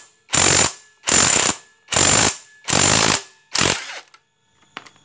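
Socket ratchet wrench with a 19 mm socket rattling through five quick back-strokes, about one every 0.8 s, loosening a nut to take off a scooter's CVT clutch. A few faint metal clinks follow near the end.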